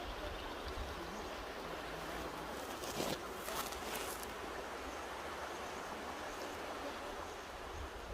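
Mountain river rushing steadily over its bed, with a short louder surge of water noise about three seconds in.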